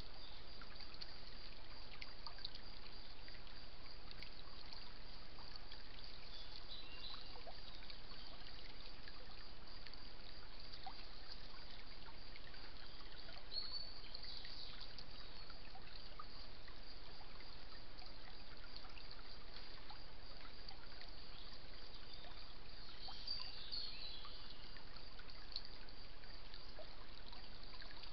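Shallow woodland stream trickling steadily over stones, with a few faint high chirps now and then.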